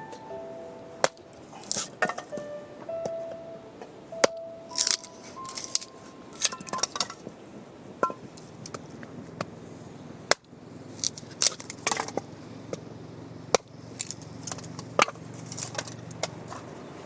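Soft piano-like background music for the first few seconds, then irregular sharp knocks and clicks.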